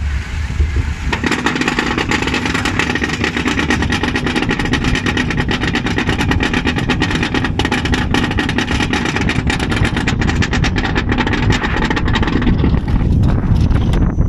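Mine train roller coaster climbing its lift hill: the lift mechanism drones steadily under dense, rapid clicking, which changes near the end as the train reaches the top.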